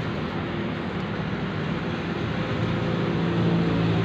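A steady engine-like hum over a constant noise bed, its low tone growing slightly louder near the end.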